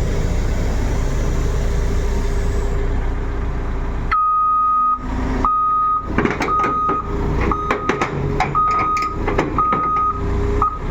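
A heavy diesel engine running steadily, then from about four seconds in a reversing alarm beeping roughly once a second, with sharp metallic clanks between the beeps.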